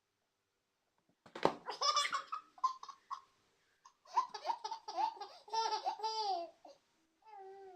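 A thump of a falling box about a second and a half in, then a baby's belly laughter in two bouts of short bursts. Near the end a drawn-out whiny baby sound begins.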